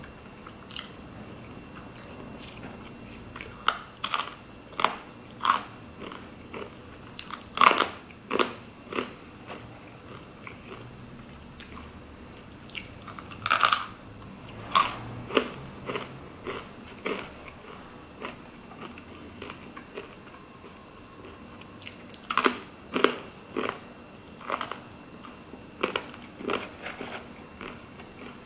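Close-up eating sounds: sharp crunches and chewing of crisp, heavily toasted food, a burger and fries, coming in clusters of crunches with quieter chewing between.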